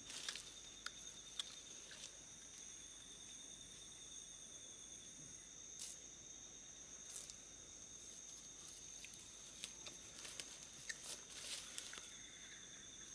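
Faint, steady high-pitched insect trilling on two tones, the lower one pulsing. Over it come scattered soft clicks and crackles of dry leaves and twigs as a chimpanzee feeds and moves in the leaf litter. The crackles come thicker near the end.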